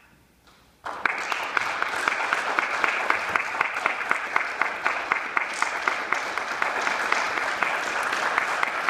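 Audience applauding at the close of a performance. The clapping starts suddenly about a second in, after near silence, and then goes on steadily and densely.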